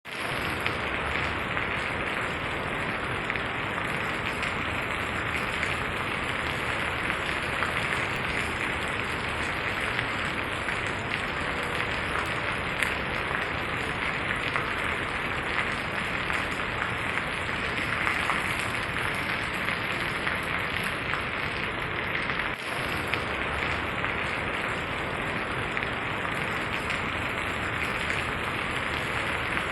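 Steady rain falling on the ground: a dense, even hiss of many small drop impacts, with one brief dip in level a little past two-thirds through.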